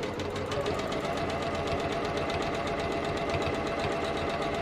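Janome sewing machine stitching steadily during free-motion quilting, a fast, even needle rhythm.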